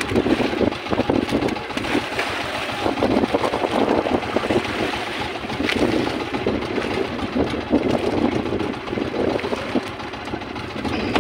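Small outrigger boat's engine running, a steady rough drone.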